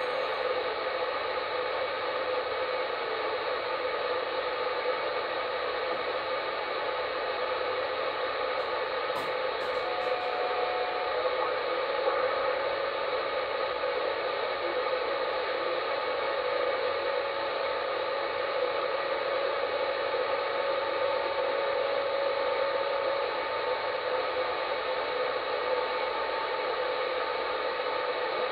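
Uniden Bearcat 980SSB CB radio receiving on channel 38 sideband with no one transmitting: a steady hiss of band noise with a few faint, steady whistling tones.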